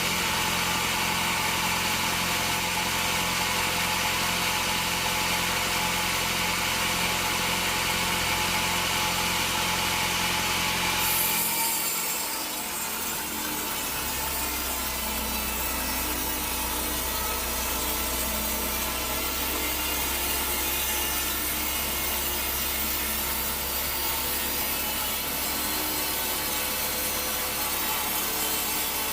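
Band sawmill blade cutting through a teak log, a steady sawing sound over the low hum of the mill's drive. The sound changes abruptly about eleven seconds in, then settles into a steady cut again.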